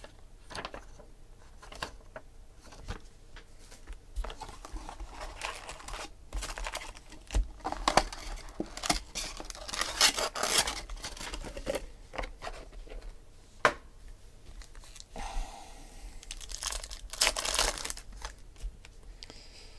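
Foil wrappers of 2008 SPX baseball card packs being torn open and crinkled by hand, with paper and cardboard rustling; irregular bursts of tearing, loudest around the middle and again near the end.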